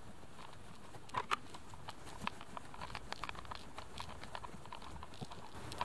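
Footsteps of a person walking while filming: a faint, irregular run of steps and light knocks, with two louder knocks about a second in.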